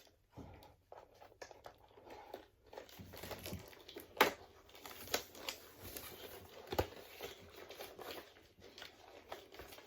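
Toy packaging handled by hand while the toy is freed from it: irregular rustling and crinkling with scattered small clicks, and two sharper clicks about four seconds in and near seven seconds.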